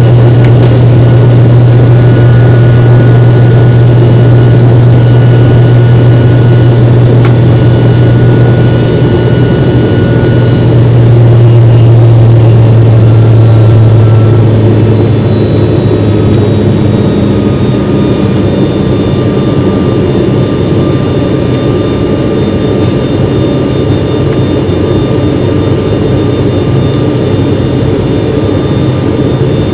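Aircraft engines heard inside the cabin of a climbing airliner: a loud, steady drone with a strong low hum and a few faint whining tones. About halfway through, the hum drops a little in pitch and loudness as engine power is eased back.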